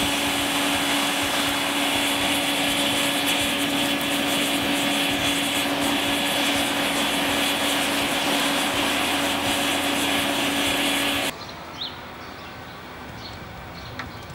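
Air blower on a charcoal forge running steadily, a rushing of air with a constant hum and a faint high whine, forcing the coals hot while the knife blade heats toward non-magnetic temperature for the quench. The blower cuts off suddenly about eleven seconds in.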